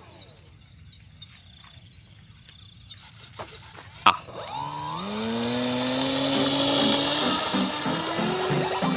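Electric ducted fan of a radio-controlled Super Bandit jet model spooling up: a click about four seconds in, then a whine that rises in pitch and builds into a loud, steady high-pitched rush.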